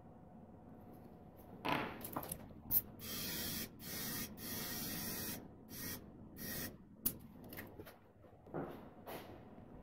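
Several short hissing sprays, each lasting under a second, with a few sharp clicks and knocks in between.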